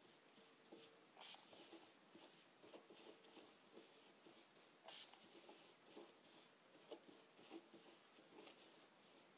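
Faint scratching and rubbing of gloved fingers kneading dry bath-bomb powder (baking soda, cornstarch and citric acid) in a glass bowl, with two short hissing spritzes of water from a spray bottle, about a second in and about five seconds in.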